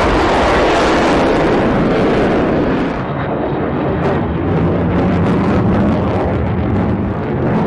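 Loud roar of a Sukhoi Su-57's twin jet engines as the fighter climbs away in a display pass. The high hiss fades about three seconds in, leaving a deep rumble.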